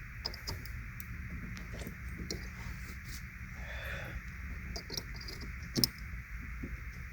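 Small plastic clicks and taps of a tail-light wiring connector and bulb socket being handled and reconnected, with one sharper click a little before six seconds in, over a steady background hiss.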